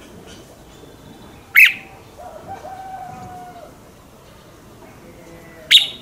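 Red-whiskered bulbul giving two short, loud, sharp calls about four seconds apart.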